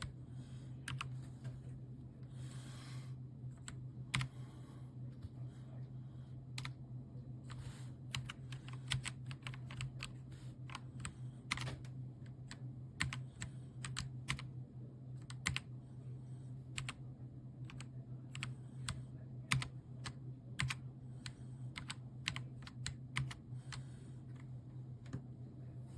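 Typing on a KOORUI MK082 mechanical keyboard: irregular key clicks, sparse at first and then quicker, over a steady low hum.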